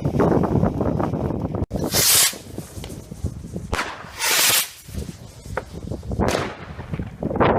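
Fireworks: a dense low crackle that stops abruptly about a second and a half in, then four short hissing whooshes, each about half a second long, like shots launching.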